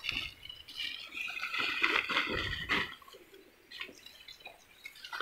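A thin plastic bag rustling and crinkling as it is handled, irregular for about three seconds, then quieter.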